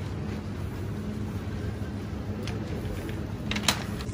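Supermarket background noise: a steady low hum, with a few short sharp clicks, the loudest near the end.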